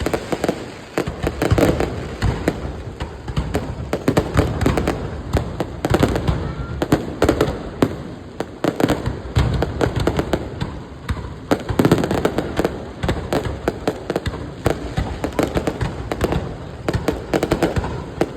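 Fireworks display: a dense, continuous run of bangs and crackles that keeps up without a break.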